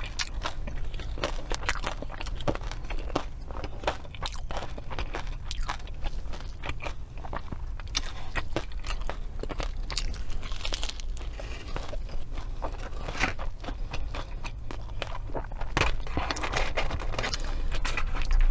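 Close-miked chewing and crunching of fast food: a steady run of crisp bites and wet chewing clicks, busier and louder near the end.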